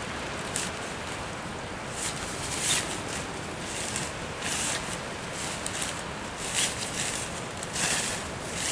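Bags being handled and crinkled, in irregular short rustling bursts over a steady background hiss.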